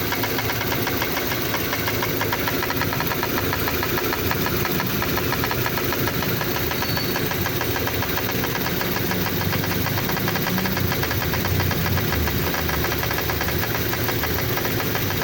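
Kia Sportage engine running with a steady, rapid, even rattle or knock that is the car's unexplained noise. The owner thinks it seems to come from the exhaust.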